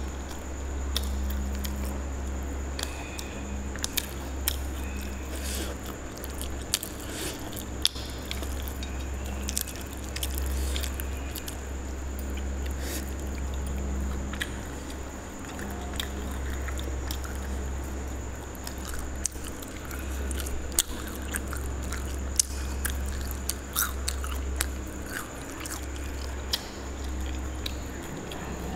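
Close-miked chewing of food by hand, with many wet mouth clicks and smacks, over a steady low hum.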